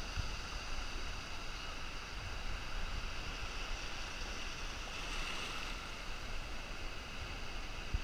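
Ocean surf washing up the beach, a steady rush that swells briefly about five seconds in, with wind rumbling on the microphone.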